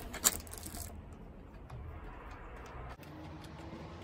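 Metal parts clicking as a carriage bolt and clamp are fitted to a tiller's metal handle tube: two sharp clicks within the first half second, a few fainter ones just after, then faint handling noise.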